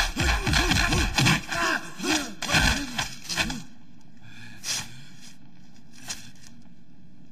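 Kung fu film fight sound: a fast flurry of punch and kick impact effects mixed with the fighters' grunts and shouts, lasting about three and a half seconds. It stops abruptly, leaving only a couple of faint ticks.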